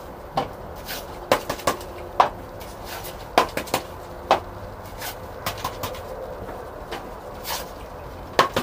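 Small black plastic plant pots being pulled apart and set down on a bench, giving irregular light clicks and knocks.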